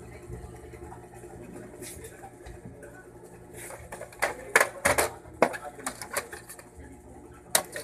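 Sharp plastic clicks and knocks from parts being handled inside an opened HP Smart Tank 615 inkjet printer. They come as a quick cluster from about four to six seconds in and once more near the end, over a faint steady hum.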